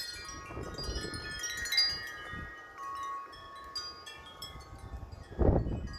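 Wind chimes ringing in strong, gusty wind, tubes struck again and again so that many tones overlap and sustain. A low rumble of wind buffets the microphone near the end.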